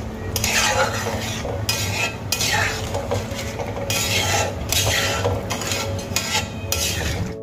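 Metal spatula stirring a thin, watery fish curry with potatoes in a metal kadai: repeated scraping, swishing strokes against the pan as the liquid sloshes.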